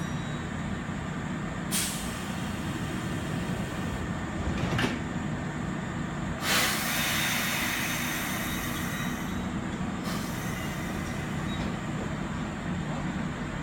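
Kintetsu 2800 series electric train at the platform with a steady low hum and two short clunks. A loud hiss of released air starts about six seconds in and fades away over several seconds, typical of the brakes being released for departure.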